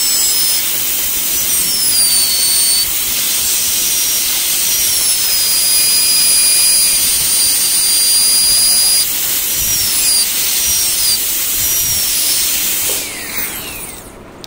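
High-speed air-turbine dental handpiece with a needle diamond bur, running with its water spray: a loud, high-pitched whine over hiss as the bur cuts through the contact point between the front teeth. The whine slides down in pitch and back up several times, and it winds down near the end.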